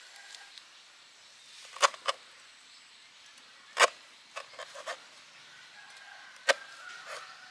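Cleaver chopping leaves on a wooden cutting board: a handful of sharp knocks spaced a second or two apart, with a quick run of lighter taps about four and a half seconds in.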